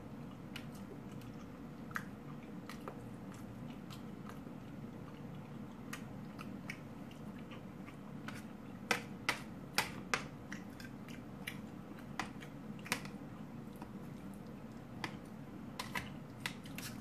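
Knife and fork clicking and tapping against a plate while food is cut and eaten, with quiet chewing. Scattered clicks, with a quick run of four sharper ones about halfway through.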